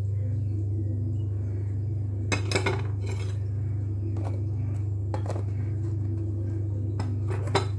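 Scattered clinks and taps of glass kitchenware, spice jars and a glass baking dish, as spices are handled. There is a quick cluster of about three a little over two seconds in and a sharp one near the end, over a steady low hum.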